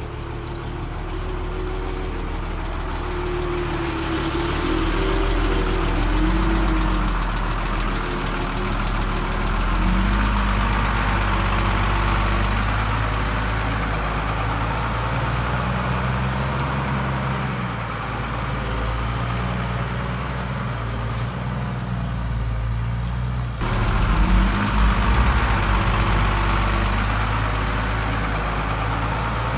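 Heavy diesel engines of earthmoving machinery running under changing load, their pitch rising and falling. A few sharp clicks come in the first two seconds, and a louder low rumble about 24 seconds in.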